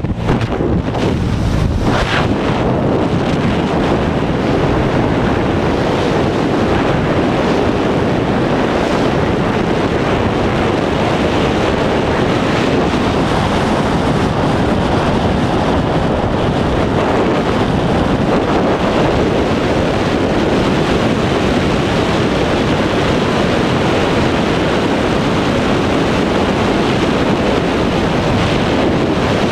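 Freefall wind rushing over the camera microphone during a tandem skydive, loud and continuous. It is uneven for the first couple of seconds as the pair leave the aircraft door, then steady.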